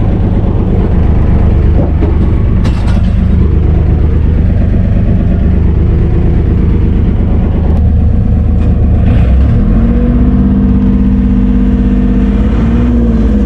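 Lifeboat's diesel engine running, heard from inside the enclosed cabin: loud and steady, with a change in engine pitch about ten seconds in.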